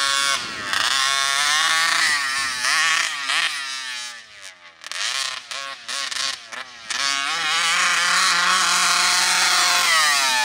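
RCMAX 80cc two-stroke gas engine in a 1/5-scale RC monster truck, revving up and down in quick throttle bursts as the truck is driven. The revs fall away in short bursts around the middle, then hold high and steady for the last few seconds.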